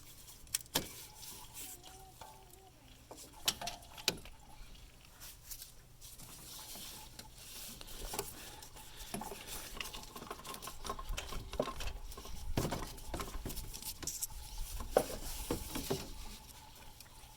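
Hand tools clinking and scraping against metal engine parts, with a few sharp clicks early on and busier rattling later, as a wrench levers back the serpentine belt tensioner and the accessory drive belt is worked off.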